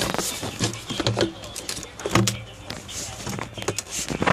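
Irregular knocks, clicks and rubbing of the plastic airbox and intake duct being worked over the throttle body to seat it, with a few dull thuds.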